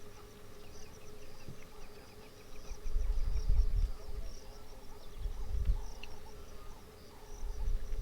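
Insects chirping in quick repeated pulses over a steady hum. A low rumble comes three times, loudest about three seconds in.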